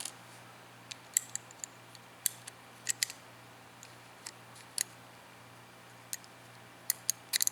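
A dozen or so sharp, irregular metallic clicks from the steel parts of an AR-15 bolt carrier group being handled and fitted back together, the bolt with its new gas rings sliding into the carrier. The clicks bunch together about three seconds in and again near the end.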